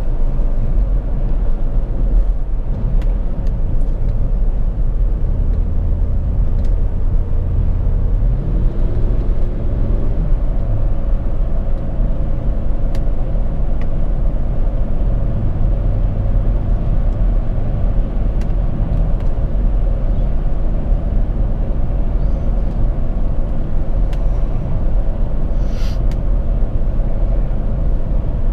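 Car engine and road noise heard from inside the cabin while driving: a steady low rumble, with the engine note climbing once about eight seconds in.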